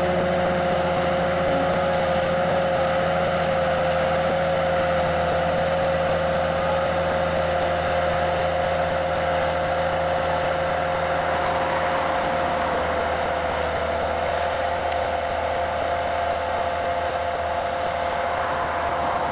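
New Holland Braud SB 64 straddle tractor running steadily at low speed, a low engine rumble with two steady whining tones over it. The low rumble drops back a little about two-thirds of the way through.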